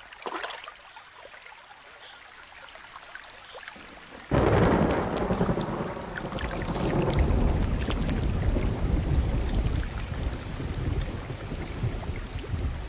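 A rainstorm breaks suddenly about four seconds in: heavy rain with thunder rumbling, loud and sustained. Before it only faint scattered ticks are heard.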